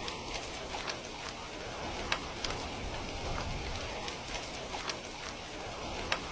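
Heavy rain falling steadily, with scattered sharp drop impacts ticking through it; the sharpest come about two seconds in and near the end.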